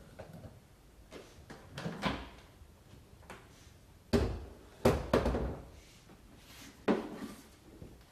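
A few separate knocks and clunks of objects being handled, the loudest two about four and five seconds in, with no vacuum motor running.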